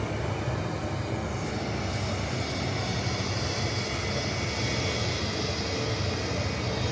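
Turbofan engines of a Helvetic Airways Embraer jet airliner running at taxi power as it taxis in, a steady jet noise.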